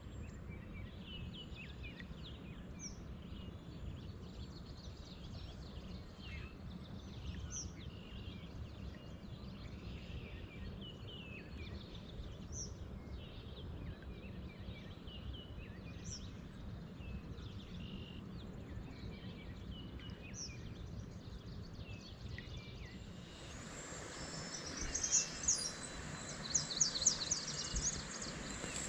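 Scattered bird chirps and calls over a steady low background rumble. About three-quarters of the way through, splashing and dripping water from a kayak paddle takes over and is louder.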